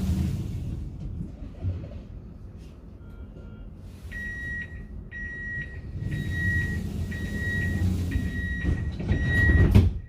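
Inside a moving tram: low running rumble, joined about four seconds in by a repeated high electronic beep, about two a second. The rumble grows louder toward the end.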